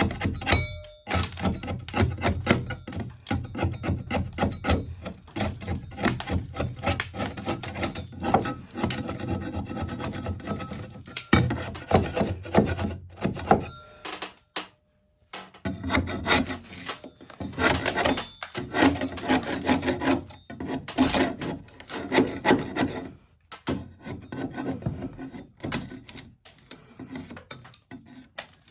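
Metal okonomiyaki spatula scraping crumbly sand plaster off a wall in quick, repeated rasping strokes, with a short pause about halfway through.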